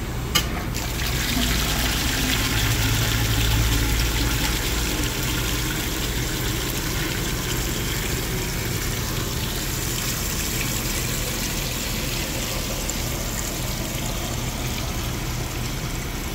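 Softened water rushing into a PVC sampling tank through a newly installed fill line, splashing and bubbling as the tank fills. The flow starts after a click about half a second in and is strongest a few seconds later, over a steady low hum of boiler-room equipment.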